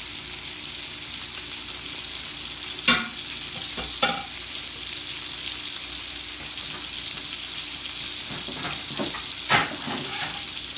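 Steaks frying in a hot skillet: a steady sizzling hiss. A utensil knocks sharply against the pan three times, about three, four and nine and a half seconds in.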